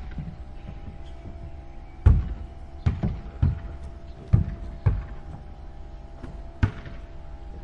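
Basketball bouncing on a court floor: six irregular thuds, the first about two seconds in the loudest, over a steady faint hum.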